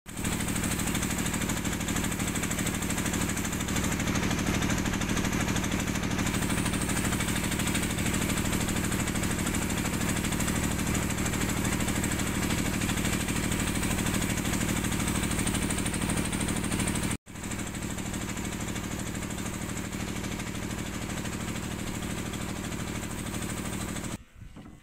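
Engine of a small wooden boat running steadily under way, one even drone. There is a brief break about two-thirds of the way in, after which it runs on slightly quieter, and it cuts off near the end.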